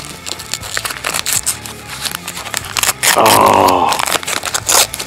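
Wrapping paper rustling and crinkling as presents are handled and unwrapped. A brief vocal sound, about a second long, comes about three seconds in.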